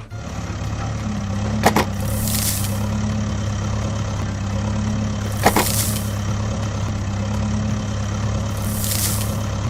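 A vehicle engine idling with a steady low hum, with two sharp clicks and three brief high hissing swishes.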